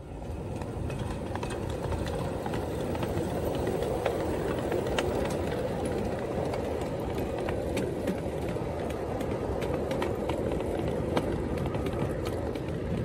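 Ride-on miniature train of flatcars with steel wheels rolling past on steel track. It makes a steady rumble with sharp clicks at irregular intervals, building up in the first second as it draws near.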